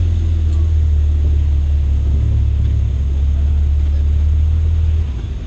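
Jeep engine idling close to the microphone, a steady low rumble that drops off about five seconds in.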